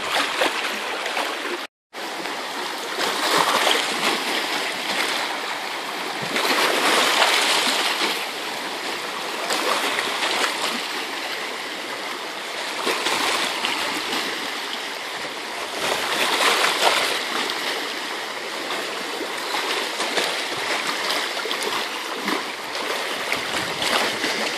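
Choppy sea water washing and splashing around shoreline rocks, swelling and easing every few seconds. The sound cuts out completely for a moment about two seconds in.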